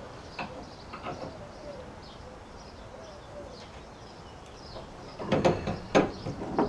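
Birds calling faintly in the background, then from about five seconds in a quick run of loud metal clanks and knocks as a steel bolt is worked by hand into the golf cart's leaf spring hanger bracket and bushing.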